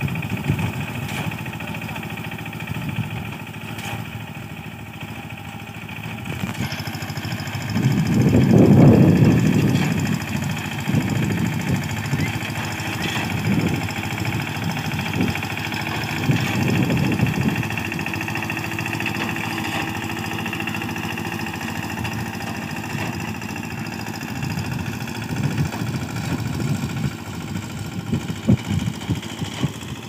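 Diesel engine of a small self-propelled wheat reaper running steadily as it cuts the crop, with a stronger low rumble about eight to ten seconds in.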